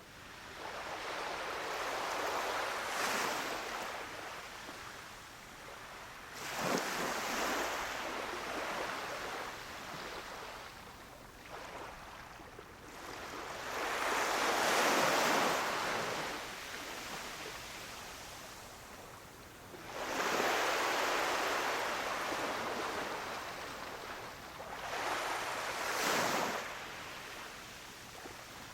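Gentle surf on a beach: small waves breaking and washing up the shore in about five surges, each swelling and falling away over a few seconds.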